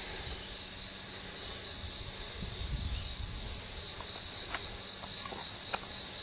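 Steady, continuous high-pitched chorus of insects on a late-summer evening, with a faint click near the end.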